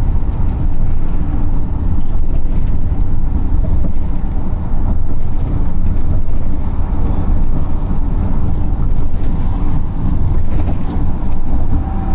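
Steady road noise of a moving car heard from inside the cabin, a heavy low rumble from tyres and wind.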